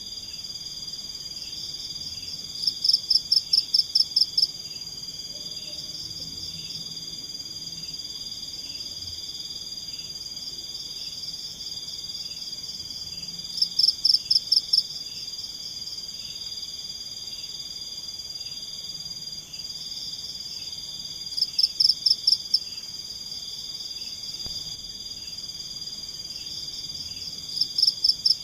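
Night-time forest chorus of insects and frogs: a steady high-pitched trill with a softer pulsing call beneath it. Four times, a louder call of about eight rapid pulses, each burst under two seconds, breaks in over the chorus.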